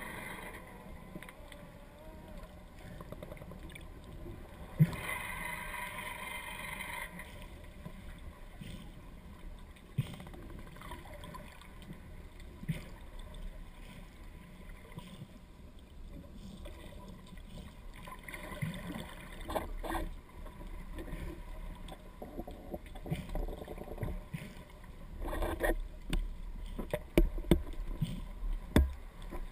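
Muffled underwater noise picked up by a GoPro camera in its waterproof housing, with scattered knocks and clicks. There is a two-second rush of higher sound about five seconds in, and the clicks come more often near the end.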